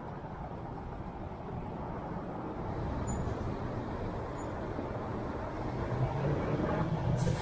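Car driving on city streets: a steady rumble of engine and road noise that grows gradually louder, with a brief hiss near the end.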